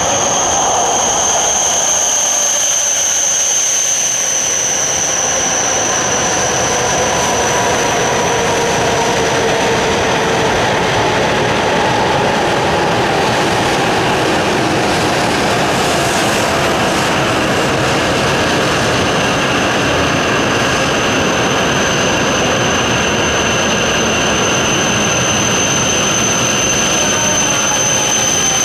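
E7/W7-series Shinkansen train moving slowly along a station platform: a steady, loud running noise with a high whine held on a constant pitch.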